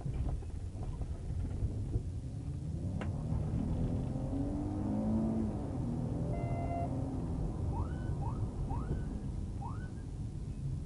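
Police patrol car driving at speed: steady road and engine rumble heard from inside the cruiser. Four short rising chirps sound near the end.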